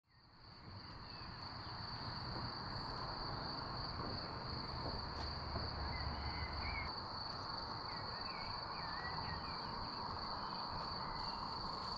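Countryside ambience fading in: insects keep up a steady high-pitched trill, and a few birds chirp briefly around the middle.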